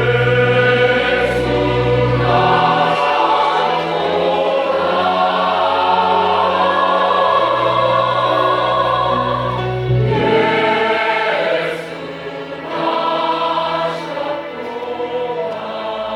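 Combined church choir singing a Christmas cantata piece, many voices holding long notes over steady low accompanying tones, growing a little softer in the last few seconds.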